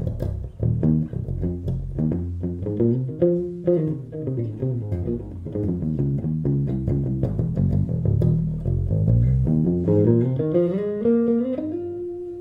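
Six-string electric bass played alone: a busy line of quick plucked notes with a full low end, climbing into higher, longer-held notes near the end. The middle pickup is wired in series, which brings out more bass.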